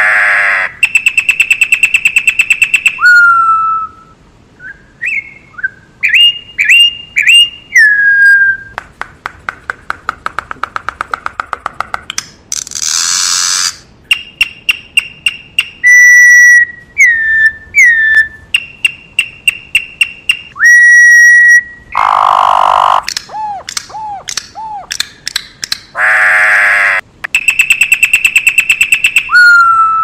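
Campo troupial (corrupião) singing loudly: clear whistled notes and downslurred whistles, broken by fast runs of rapidly repeated notes and a few harsh, rasping calls.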